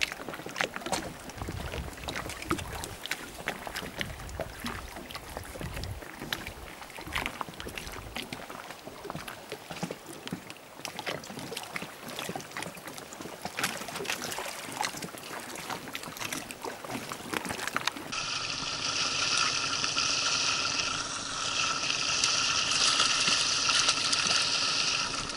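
River water lapping and wind on the microphone, with many scattered small clicks. About two-thirds of the way through it switches to a louder, steady hiss.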